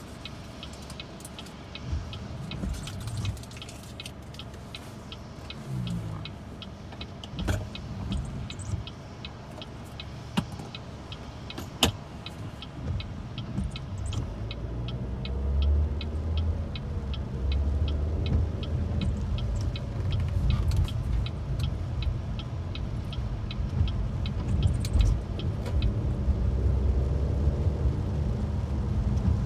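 Car cabin sound while driving in heavy rain. A rapid, regular ticking of about three to four clicks a second runs through the first half, while the car sits at a light. About halfway through, engine and wet-tyre noise build as the car pulls away and drives on.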